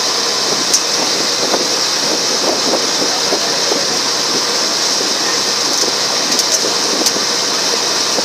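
Passenger ferry under way: a steady rush of water and wind along the boat, with the engine's drone beneath it. A few light ticks come about a second in and again near the end.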